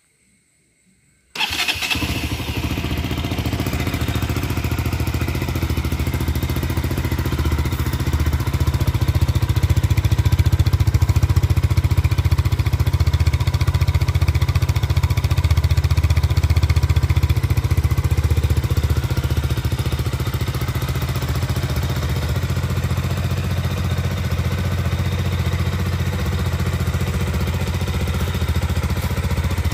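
KTM RC 200's single-cylinder engine starting about a second and a half in, then idling steadily through a stock KTM RC 390 BS4 full-system exhaust whose dB killer is still fitted.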